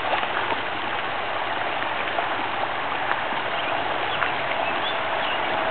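Shallow creek rippling steadily over rocks, with a few light splashes from dogs wading through the water.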